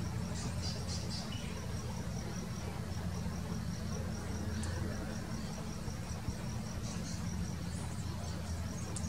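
An insect trilling steadily in fast, even pulses over a steady low rumble, with a few brief high chirps about half a second in and again near the end.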